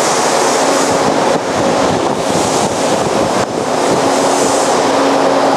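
Vertical bandsaw running: a loud, steady hiss with a low hum underneath.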